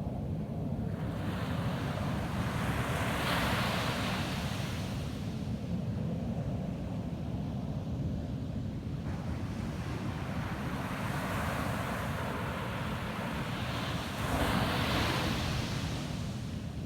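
Ocean surf breaking and washing up a beach, two waves each swelling into a long hiss and then ebbing, the second loudest near the end, over a steady low rumble.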